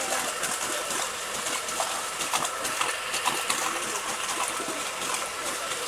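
Muddy ditch water splashing and trickling, with irregular small splashes.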